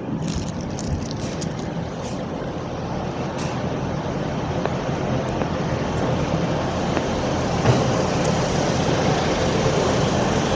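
Diesel train engines running at the station, a steady rumble that slowly grows louder.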